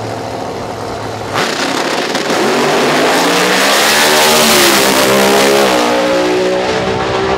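Drag race car engine running steadily, then launching at full throttle with a sudden very loud blast about a second and a half in. The engine pitch then climbs as the car accelerates, dips briefly and climbs again before the sound cuts off suddenly at the end.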